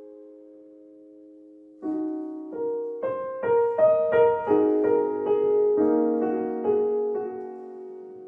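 Background piano music: a held chord fades, then about two seconds in a new chord is struck and a gentle melody of single notes follows over sustained chords.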